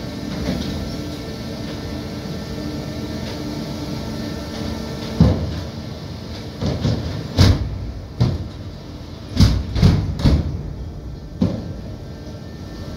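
Antonov An-124-100 landing gear being cycled on jacks: a steady mechanical hum with a few held tones, then, from about five seconds in, a string of heavy irregular clunks as the gear and its doors move and lock.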